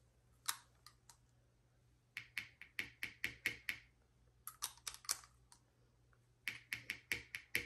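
Three quick runs of light, sharp clicks and taps, about five or six a second, a second or so apart, like small hard objects being handled.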